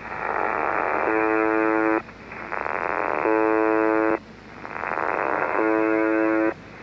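The Buzzer (UVB-76), the Russian shortwave station on 4625 kHz, heard through a shortwave receiver in upper sideband: three rasping buzzes, each about a second long and a little over two seconds apart. Each buzz comes right after about a second of rough, noisy static, a weird growling beside the buzzing.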